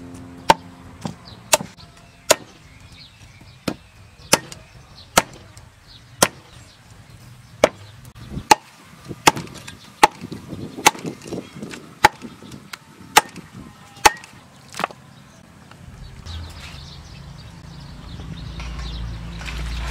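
Meat cleaver chopping goose meat on a thick wooden chopping block: sharp strikes, about one a second. The chopping stops about fifteen seconds in.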